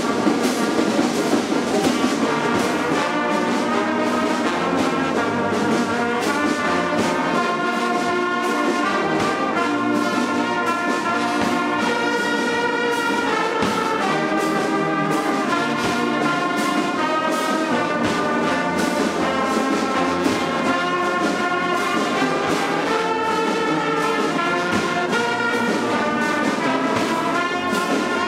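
A large brass band playing together, trumpets, trombones and tubas sounding held notes that shift every second or so.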